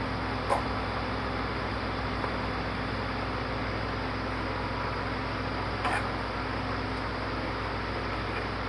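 Steady low hum and hiss of background noise, broken by two brief light clicks, one about half a second in and one about six seconds in.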